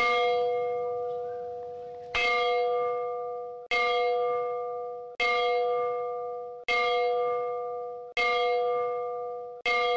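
A bell struck seven times at an even pace, about every second and a half. Each stroke rings with several steady tones and fades away before the next.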